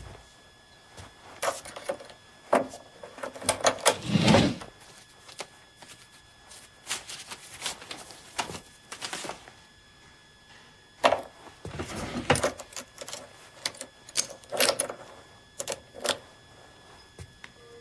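Papers and newspapers being rummaged through: rustling, sheets shuffled and set down, with clicks and knocks, in two busy bouts with a heavier knock about four seconds in.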